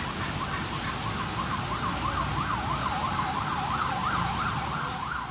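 Emergency vehicle siren in a rapid yelp, its pitch sweeping up and down several times a second. Steady street noise runs underneath.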